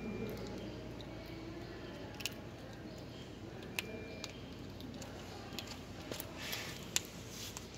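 Kitten chewing on bony fish: scattered sharp crunches and clicks a second or so apart, the loudest near the end.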